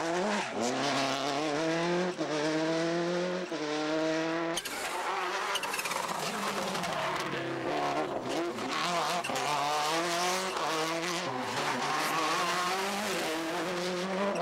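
Subaru Impreza WRC rally car's turbocharged flat-four engine at full throttle, its pitch climbing and dropping back at each upshift as the car accelerates hard. About a third of the way in, a new run starts and the revs rise and fall again.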